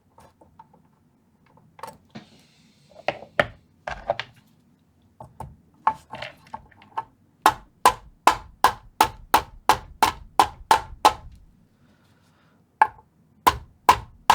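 Small hammer tapping on a flathead screwdriver to bend metal tabs flat against a steel amplifier chassis: sharp, slightly ringing metallic knocks, a few scattered ones, then a quick run of about a dozen blows at three or four a second, and a few more near the end.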